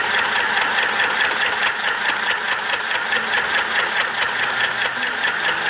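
Rich & Royal portable mini electric sewing machine running steadily under its foot pedal, stitching through cotton cloth: an even, fast motor-and-needle whir that doesn't let up.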